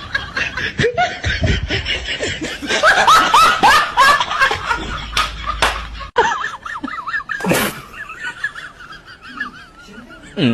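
People giggling and laughing in short bursts, with a few sharp slaps or clicks about halfway through.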